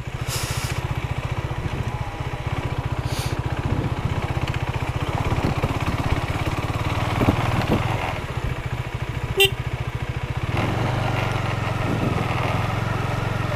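KTM RC 390's single-cylinder engine running steadily at low speed under way, a continuous low drone that grows a little stronger about ten and a half seconds in. A brief sharp click comes a second before that.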